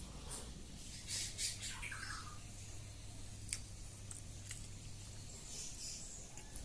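A person eating close to the microphone: scattered wet mouth clicks and lip smacks while chewing, over a low steady hum.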